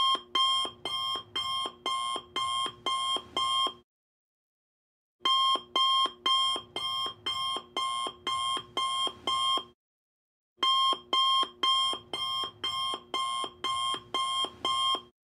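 Timer alarm going off at the end of the countdown: electronic alarm-clock beeping, about two beeps a second, in three runs of about eight beeps with short pauses between runs.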